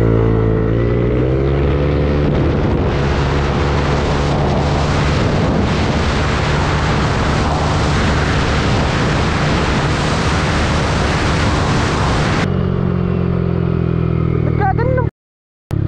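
Yamaha NMAX 155 scooter's single-cylinder engine through a CRP bolt-on exhaust, rising in pitch as it pulls away. It then runs at speed under heavy wind rush. Near the end the rush cuts off and the engine runs steadier, followed by a brief dropout.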